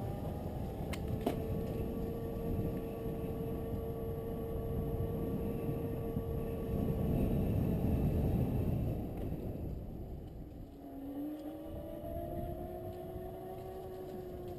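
A small vehicle's motor whining as it moves, the pitch gliding up and holding, then dropping and rising again with speed, over a steady low rumble that is loudest about seven to nine seconds in.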